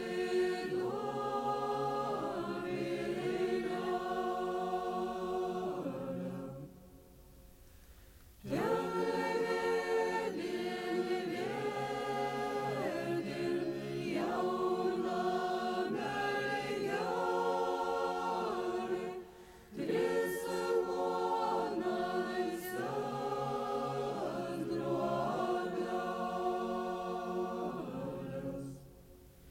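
Lithuanian folk choir singing a cappella, several voices together in phrases with three short pauses between them.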